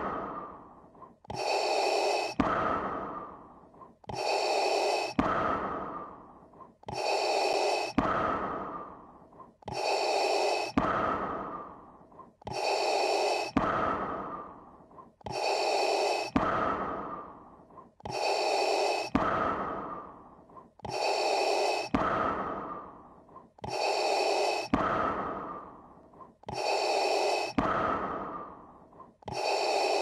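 Darth Vader's masked respirator breathing sound effect: slow, mechanical breaths repeating evenly, each a short inhale followed by a longer fading exhale, about one breath every three seconds.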